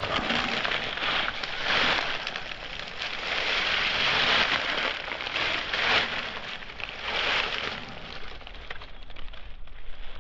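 Dry fallen leaves rustling and crackling, in swells that rise and fall several times.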